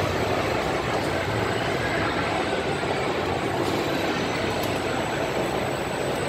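Pendulum flip ride running: a steady mechanical rumble and hiss with a few faint whining glides, over the loud din of an indoor amusement hall.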